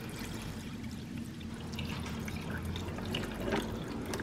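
Water pouring in a steady stream from a glass carafe into the water reservoir of a drip coffee maker.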